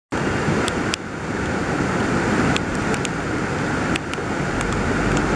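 Steady rushing roar of a swollen, flooding river in spate, its muddy water churning fast, with a few faint ticks.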